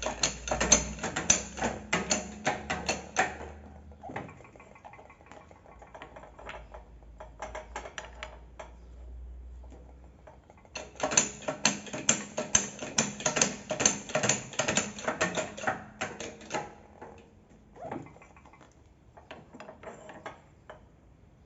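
Ratchet wrench clicking in two long runs of quick strokes, with shorter bursts between, as a new rubber bushing is pressed into a Ford Edge's rear curved suspension arm.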